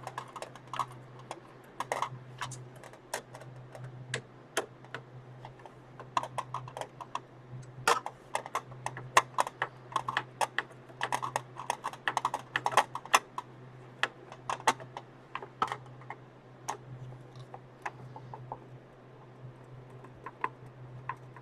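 Irregular clicks and taps of small metal screws and plastic pieces being handled on a PC heat sink, some in quick clusters, over a steady low hum.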